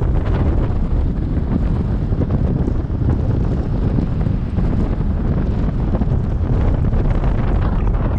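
Wind buffeting the microphone of a moving car, over a steady deep road rumble.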